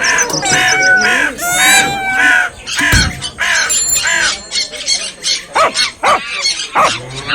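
A recorded mix of bird and animal sounds: several birds call in quick succession, with one short, heavy sound about three seconds in.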